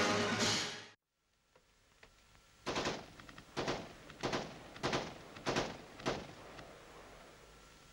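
Film-soundtrack gunfire: six single shots about two-thirds of a second apart, starting nearly three seconds in, each with a short echoing tail. Music fades out about a second in, before the shots.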